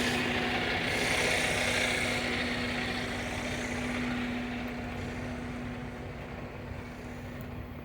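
A vehicle running, its broad rushing noise fading away over several seconds, over a steady engine hum.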